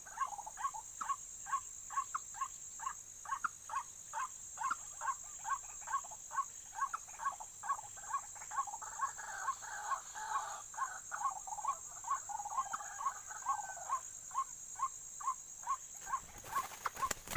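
White-breasted waterhen (ruak-ruak) calling, a repeated short note about twice a second that thickens into a fuller stretch of calling midway, over a steady high insect drone.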